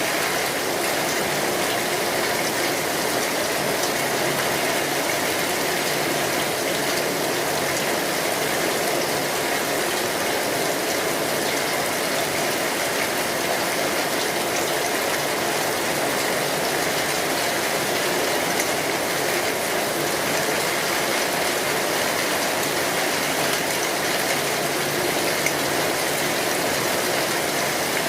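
Steady heavy rain falling on a metal roof, with the fine clicking crackle of a wood fire mixed in.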